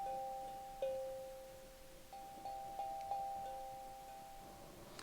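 An 8-note tongue drum struck with a mallet, one note at a time. Each note rings on and slowly fades: a single lower note about a second in, then a quick run of five notes.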